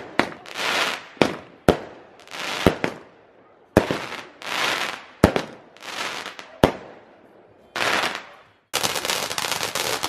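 Consumer fireworks: a multi-shot cake firing six sharp bangs about a second apart, with hissing rushes of the bursting shots between them. About nine seconds in, a ground fountain takes over with a steady, dense crackling hiss of sparks.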